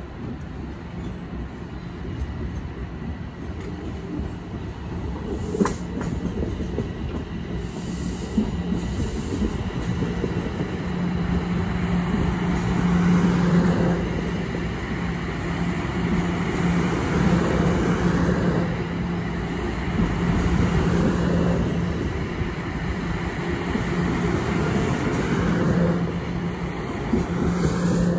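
A TTC subway train approaching and running past close by, its wheels rumbling on the rails with a few sharp clacks and a steady low hum. It grows louder as the train draws level and stays loud while the cars go by.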